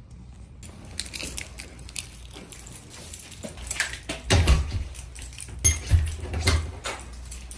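Handling noise: puffer-jacket fabric rustling and rubbing against a handheld phone's microphone, with scattered clicks and a few louder thumps about halfway through.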